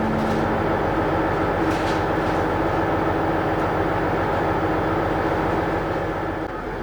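Interior of a two-car diesel railcar running along the line: a steady rumble of wheels on rail, with a faint click or two from the track.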